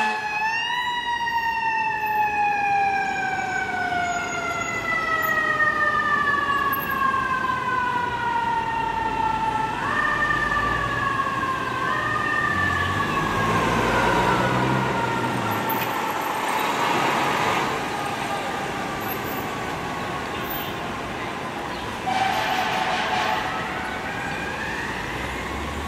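Fire engine's mechanical Federal Signal Q2B siren in one long, slowly falling wail, pushed back up briefly twice, about ten and twelve seconds in, then fading lower. The truck's engine rumbles underneath around the middle, and a brief louder sound comes about 22 seconds in.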